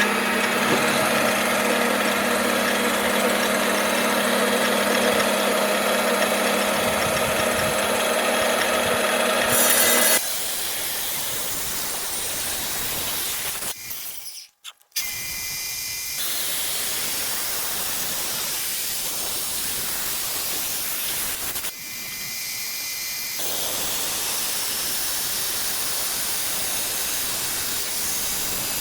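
Electric rock saw running and grinding through agate-bearing rock, a steady motor hum under the noise of the blade in stone. The sound breaks off and changes abruptly about ten seconds in, drops out briefly a little later, and shifts in level twice more toward the end.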